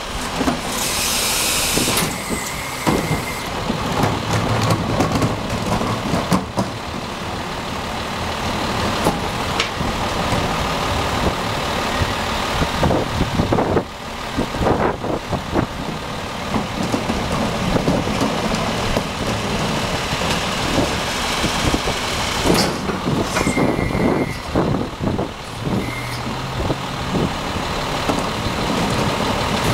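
Autocar ACX garbage truck with a split Heil Multitask SL body running at the kerb while its cart tipper dumps two carts and lowers. There is a burst of air hiss about a second in, knocks of carts and the lifter throughout, and another short hiss about two-thirds of the way through.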